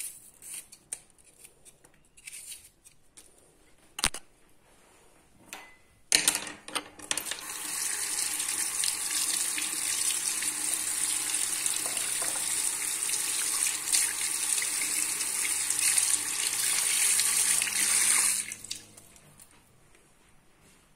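A few knocks and a sharp click of handling, then a kitchen tap runs steadily into the sink for about eleven seconds while onion and garlic are rinsed under it, and is shut off abruptly.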